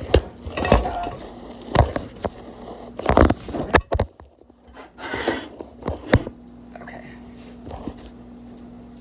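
Cooking pots and utensils clattering and scraping, a few sharp knocks over the first four seconds, then a steady low hum from about six seconds in.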